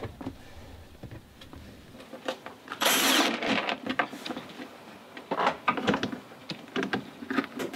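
Cordless drill/driver running in short bursts, driving the lid screws of an automatic antenna tuner's plastic case, with the loudest burst about three seconds in, amid clicks and handling of the case.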